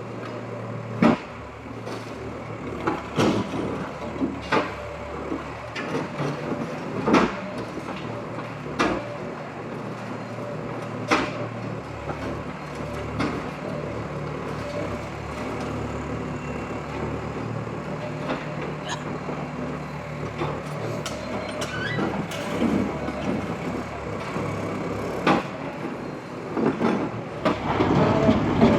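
Bulldozer's diesel engine running steadily while demolishing a masonry structure, with repeated sharp knocks and crashes, frequent in the first half and more scattered later.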